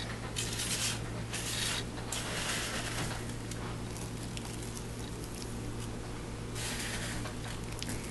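Dry toasted coconut flakes rustling and pattering as they are tipped from a metal sheet pan and scattered by hand, in a few short bursts (three close together at the start, one more near the end), over a steady low hum.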